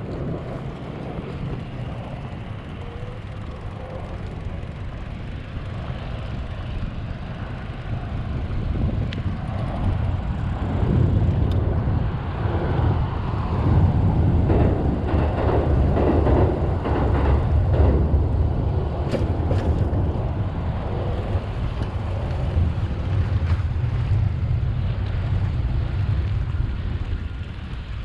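Low vehicle rumble that swells through the middle and eases toward the end, with wind buffeting the microphone.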